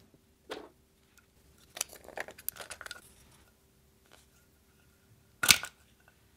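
Small plastic tub of store-bought slime being handled and opened: a few small clicks and rattles, then one sharp, loud snap about five and a half seconds in as the lid comes off.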